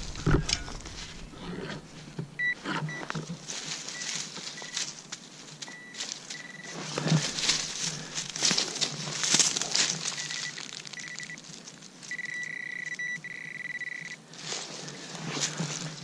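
Metal detector beeping at one high pitch: a series of short beeps, then a steady tone about two seconds long near the end as a buried metal target is located. Scattered rustling and scraping noises run throughout.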